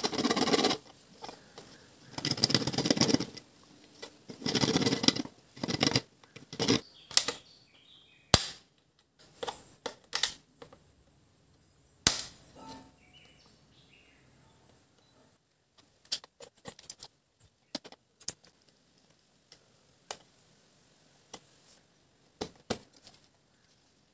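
Hand-held hacksaw blade sawing through the rim of a PVC pipe in short strokes, four or five bursts of sawing in the first seven seconds, followed by scattered clicks and small knocks.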